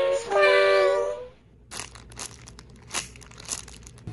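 A held, pitched intro sound for about the first second, then the crackling and crinkling of a thin plastic bag as a wrapped squishy toy is handled, with scattered sharper crackles.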